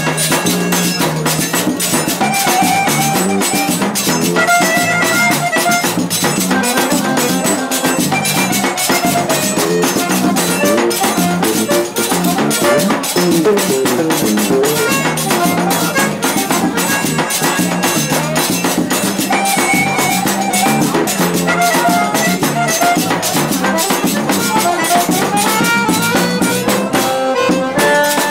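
Live forró pé-de-serra: an eight-bass button accordion (oito baixos) plays a lively melody over a fast, steady percussion beat, with a metal shaker (ganzá) rattling along.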